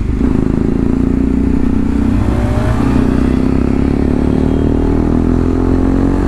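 Bajaj Pulsar NS200's single-cylinder engine running under way through a replica Akrapovič full exhaust system. Its note dips briefly at the very start, then holds fairly steady.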